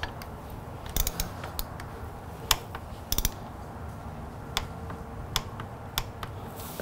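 Socket wrench ratchet clicking in short runs of a few clicks, then single clicks, as a motorcycle water pump drain bolt is run in and torqued to 12 newton metres.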